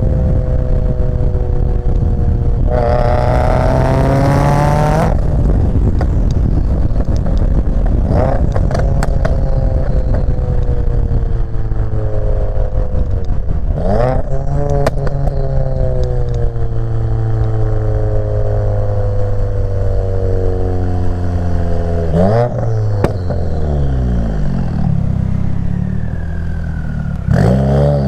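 Subaru WRX turbocharged flat-four running through a catless J-pipe and Greddy RS-Race 80 mm catback exhaust under hard driving. It revs up loudly about three seconds in, then the engine note falls and steps through shifts, with quick rev blips about halfway and again later, another surge near the end, and a few short cracks as it comes off the throttle.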